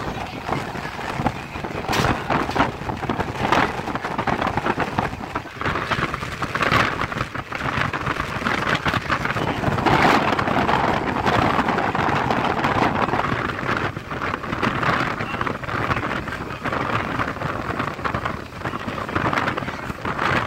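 A moving vehicle running with wind rushing through an open window: a steady noisy rush with irregular clattering knocks, swelling louder about halfway through.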